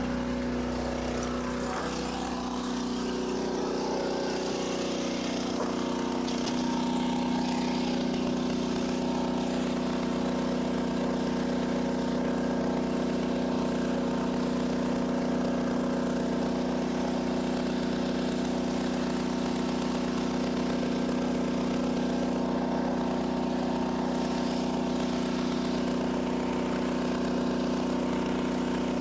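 A small engine running steadily at constant speed, a low hum with a strong even tone that settles a few seconds in and holds without a break.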